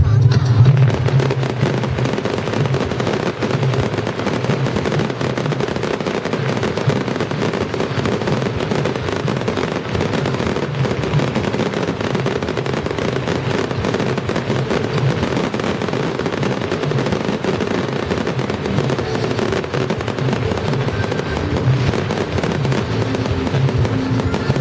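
Fireworks going off in a dense, continuous barrage of crackling and popping, with music playing underneath.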